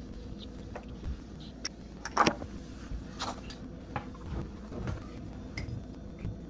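Scattered light clinks and taps of making a coffee by hand: frothed milk poured into a ceramic mug and a spoon stirring in it, with a louder knock about two seconds in.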